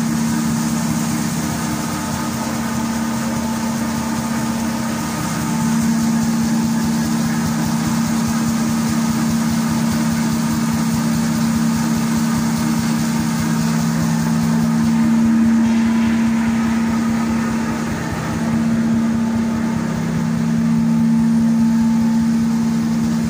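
Fiber cement board making machine running: a steady low motor hum over continuous mechanical noise, with the hum changing in pitch and strength a couple of times.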